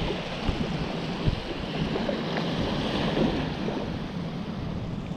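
Wind buffeting the microphone, with waves washing in behind it.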